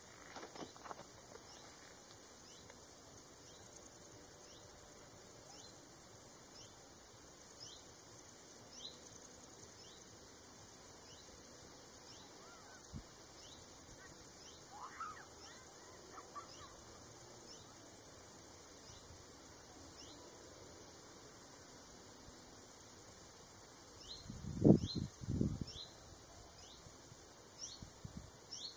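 Steady, high-pitched chirring of crickets in a summer meadow, with short rising chirps repeated about once a second and a faint call midway. About 25 s in, two short low thumps stand out as the loudest sounds.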